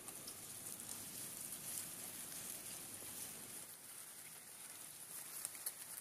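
Faint outdoor ambience: a steady high hiss with scattered light ticks.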